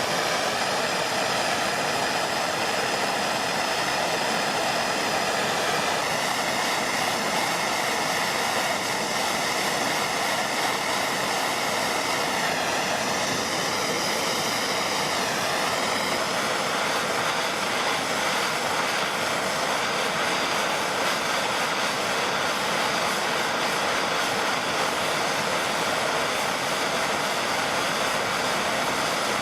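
Handheld MAPP gas torch burning with a steady rushing hiss while it heats a copper cable lug for soldering. Its tone wavers slightly about halfway through.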